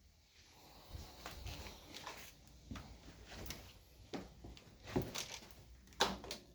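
Irregular clicks, knocks and rustles of things being handled and moved about, with no vacuum motor running; the sharpest knocks come about five and six seconds in.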